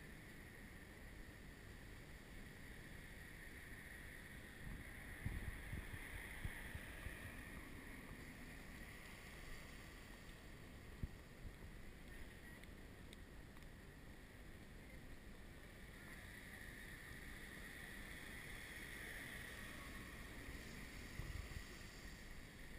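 Faint outdoor ambience, with a few low rumbles of wind on the microphone about five seconds in and again near the end.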